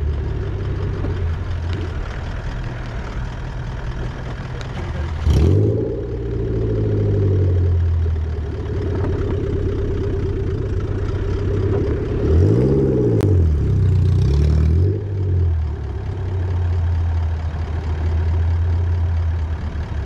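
Off-road 4x4's engine running at low speed, heard from inside the cab. It is revved up and let back down about five seconds in, and revved and eased off a couple more times between about twelve and fifteen seconds in.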